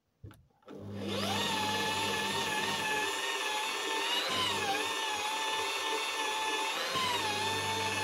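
Electric car-paint polishing machine starting about a second in, its whine rising to speed and then running steadily as it works polishing paste into the paint to take out a scratch. Its pitch dips briefly twice.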